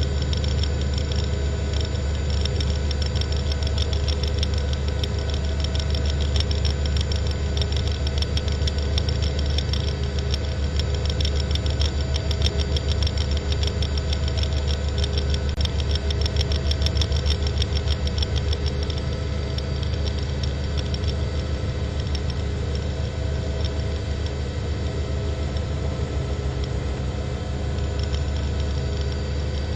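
Steady helicopter cabin noise, with the turbine and rotor drone and many steady tones over a fast, fine pulsing, picked up on a news chopper's microphone.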